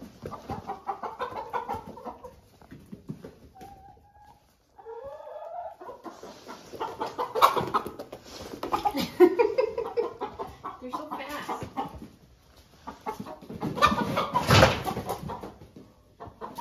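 Domestic hens clucking and squawking in short pitched calls, with two loud thumps, one about halfway through and a louder one near the end.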